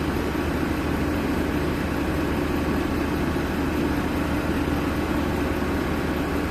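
Crawler excavator's diesel engine running steadily.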